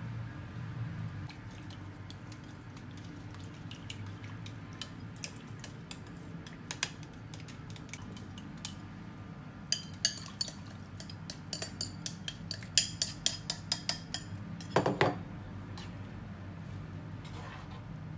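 Utensils clinking and scraping against a glass bowl and a frying pan as miso dissolved in dashi is stirred and poured into pork miso soup. Scattered light clinks at first, then a quick run of sharper clinks about three a second past the halfway point, and one louder clunk near the end.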